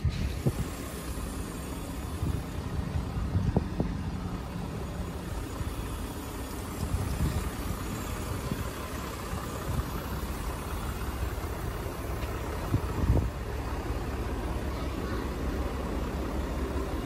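A vehicle engine idling steadily, with two short knocks, one a few seconds in and one later on.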